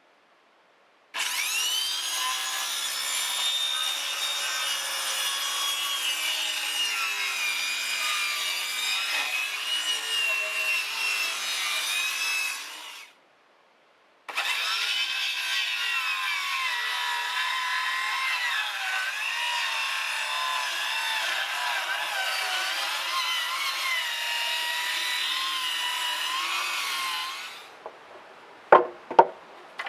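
Power saw cutting through wood in two long, steady cuts, its whine wavering and dropping in pitch as the blade takes load.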